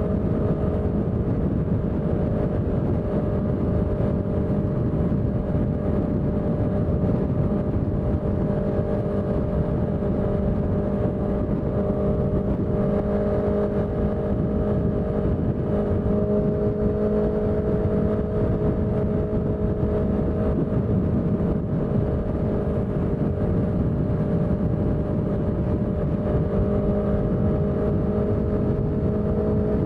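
Honda CBR650F's inline-four engine running at steady, nearly unchanging revs, with a dense low rumble underneath.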